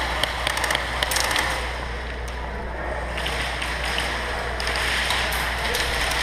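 Bursts of rapid airsoft gunfire, fast strings of sharp clicks, in the first second or so and more faintly near the end, over a steady background hiss and low hum.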